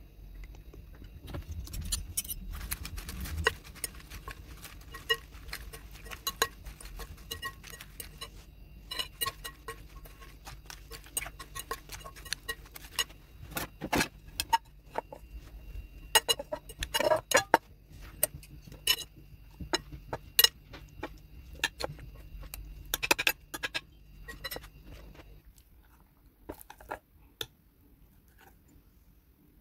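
A metal fork and spoon tossing a salad in a glass bowl: a stream of irregular clinks and taps of metal on glass, some sharp and loud. The clinking dies down near the end.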